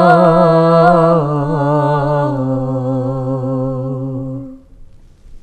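A man and a woman singing an Uzbek song together without accompaniment, holding the drawn-out end of a line with a wavering vibrato. The voices step down in pitch twice and stop about four and a half seconds in.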